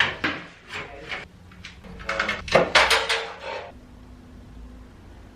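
Knocks and clatter of cupboard doors being handled, with a short squeaky creak in the middle.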